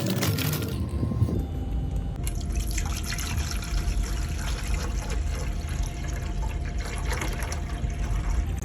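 DeLonghi Magnifica Evo bean-to-cup coffee machine running a cleaning cycle: water trickling and dripping from its spout over a steady low pump hum.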